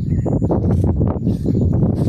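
Dense, irregular rustling and low rumble from someone walking through grass and brush, with handling and wind noise on the camera's microphone.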